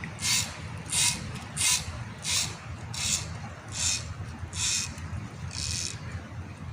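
Rhythmic rasping or scraping strokes, about one and a half a second, that stop near the end, over a steady low hum.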